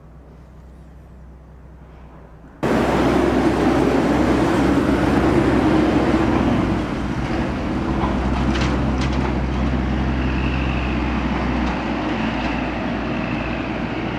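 Outdoor town noise: a quiet hum, then a much louder steady rumble and hiss of urban sound that starts abruptly about two and a half seconds in, with a few faint ticks.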